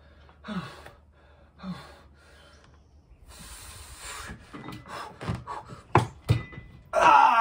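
A man straining through the last reps of preacher curls taken to failure: two short grunts, a long forceful exhale, a run of short sharp gasps, then a loud drawn-out groan near the end.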